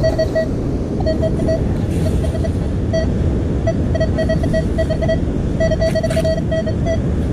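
Metal detector beeping on a buried metal target: many short beeps at one steady pitch, in uneven clusters. Heavy wind rumble on the microphone runs underneath.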